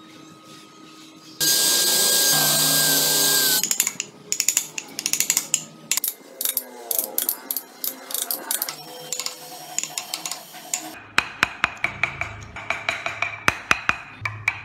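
A power tool runs loud and steady for about two seconds, then many sharp taps of a chisel cutting into a wooden car body, quickening into a steady run of strikes near the end.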